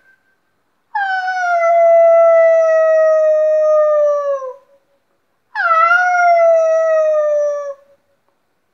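A man imitating a howling wolf with his voice: two long howls, each sliding slowly down in pitch, the second opening with a quick upward swoop.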